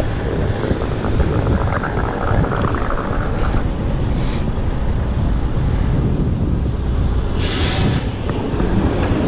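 Wind buffeting an action-camera microphone on a moving bicycle, a steady low rumble, with vehicle noise; a short hiss comes about four seconds in and a longer one near eight seconds.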